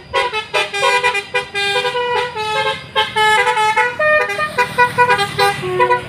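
Telolet musical horn on a Brage Trans high-deck tour bus, playing a fast tune of short notes that step between pitches, with two brief breaks.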